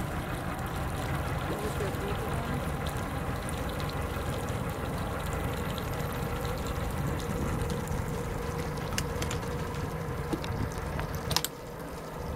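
Steady low rumble aboard a small boat on open water, with water lapping and trickling at the hull. A single sharp knock comes near the end, after which the rumble drops.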